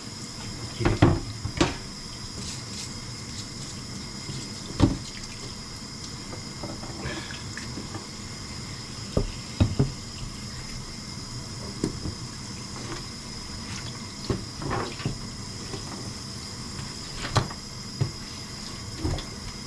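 Water running steadily from a kitchen tap into the sink while something bloody is rinsed. Short knocks and clatters of handling in the sink come now and then, about ten in all.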